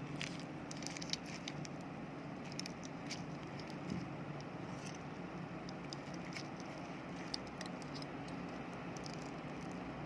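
Faint scattered clicks and crinkles of a lithium-ion phone battery's aluminium pouch and inner layers being handled and pulled apart by hand, over a steady low background hum.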